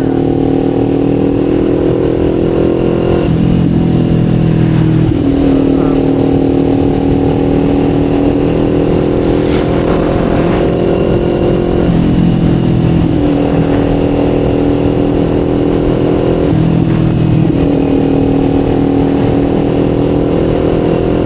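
Kawasaki Z400's parallel-twin engine through an SC Project muffler, running steadily under throttle while riding. Three times the note drops for a second or two as the throttle is eased off, then picks back up.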